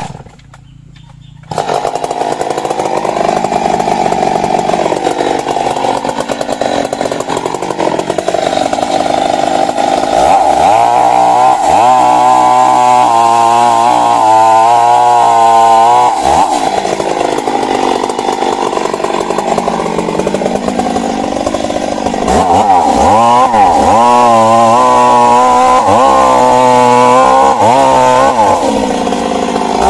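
Stihl MS 382 two-stroke chainsaw running at full throttle while cutting into a large tree trunk, coming in suddenly about a second and a half in. Twice the engine pitch dips and wavers for several seconds as the chain bogs under load in the wood, then steadies again.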